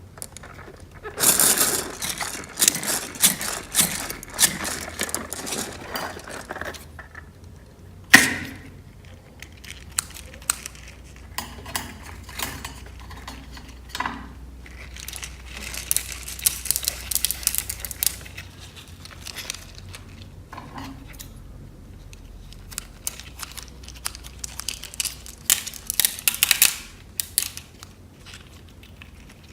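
Clear slime with beads mixed through it, being squished and folded by hand: bursts of crackling and clicking, with one sharp click about eight seconds in.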